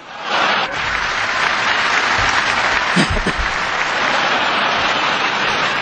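Audience applauding, swelling up within the first half second and then holding steady.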